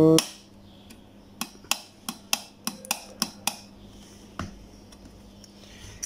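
A quick run of sharp clicks and taps, about eight in two seconds, then a single knock: hard plastic parts being handled on the workbench.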